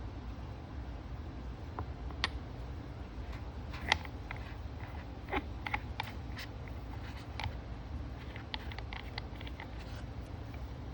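Scattered light clicks and taps as a short-shifter assembly and its packaging are handled, about a dozen irregular knocks spread through, over a steady low hum.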